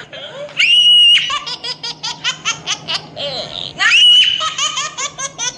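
High-pitched laughter: a shrill squeal, then rapid giggles at about six a second, and the same squeal and giggles again about three seconds later.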